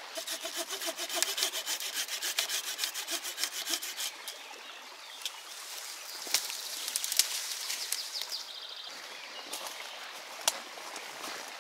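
Rapid rhythmic scraping, about five or six strokes a second for the first four seconds, then irregular rustling of branches and brush with a few sharp snaps.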